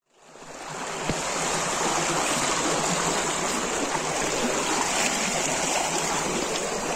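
Water rushing along a narrow concrete-lined channel: a steady, even flow that fades in over the first second.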